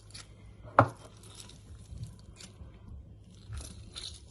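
Kitchen handling sounds during salad preparation: one sharp knock a little under a second in, then faint scattered taps, rustling and scraping.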